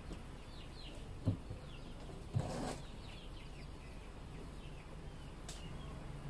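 Faint small birds chirping in short falling notes, and two light knocks, about a second and two and a half seconds in, from a hand against the hollow plastic barrel, the second followed by a short rustle.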